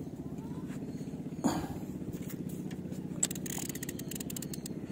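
Small boat engine running steadily with a fast, even pulse, with one knock about a second and a half in and a quick run of small clicks a little after the three-second mark.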